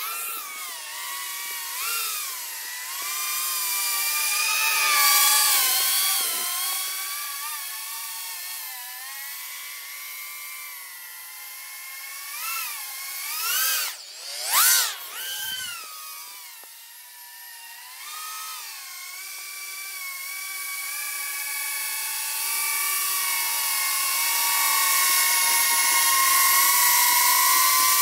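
E-Flite Torrent 110 FPV quadcopter's motors and propellers whining, the pitch rising and falling with throttle, with several louder swooshing passes around 5 s and 13 to 15 s in. From about 18 s in the whine grows louder and steadies as the quad hovers close by.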